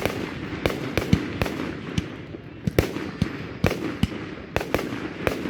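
Fireworks going off: an irregular run of sharp bangs and pops, about a dozen in five seconds, over a continuous rumble.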